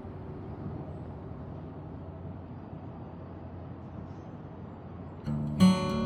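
Background guitar music: after a quiet stretch, strummed guitar chords come in loudly about five seconds in.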